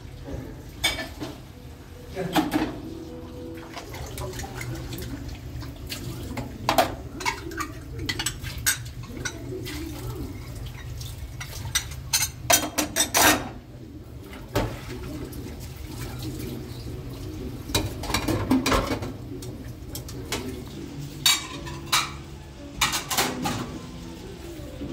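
Irregular knocks and clinks of hard objects being handled, in clusters, over a steady low background noise.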